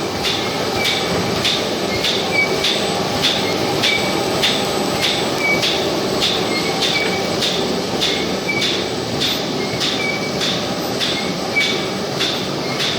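GDJA 1400 roll paper sheeting machine running: a steady mechanical noise with an even clacking about three times a second.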